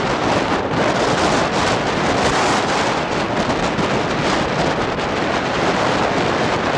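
Loud, steady wind buffeting the microphone, with the rumble of a vehicle driving through strong storm winds.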